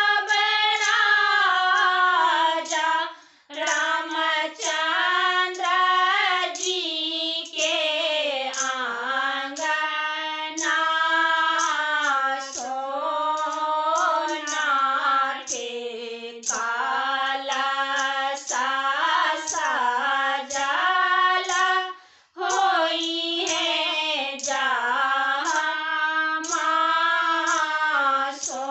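Three women singing a Maithili Chhath devotional 'sanjh' song for the kharna evening together in unison, without instruments, with short breaks for breath about three seconds in and again about 22 seconds in.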